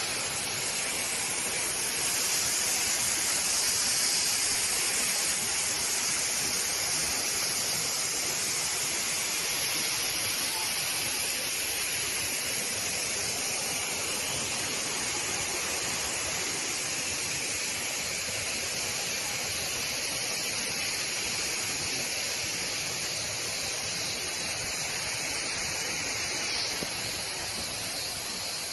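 Waterfall: falling water rushing in a steady, dense hiss.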